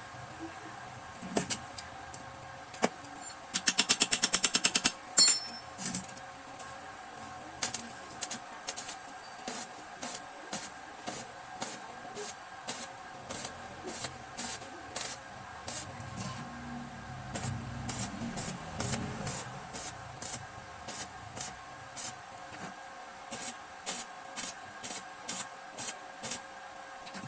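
Sharp metallic taps about two a second from hand-tool work on a motorcycle exhaust header pipe, with a fast rattling burst of clicks and a louder knock near the start.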